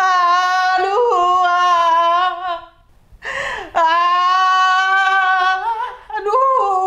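A man wailing: two long, drawn-out crying cries with a gasp for breath between them, then shorter wavering sobs near the end.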